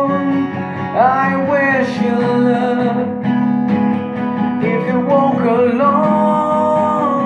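Acoustic guitar with a capo being strummed in steady chords, with a man singing over it in long held notes that bend in pitch.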